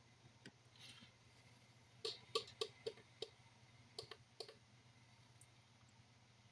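Small, sharp clicks and taps from handling tools at an electronics soldering bench: a quick run of about six between two and three and a half seconds in, then three more around four seconds in.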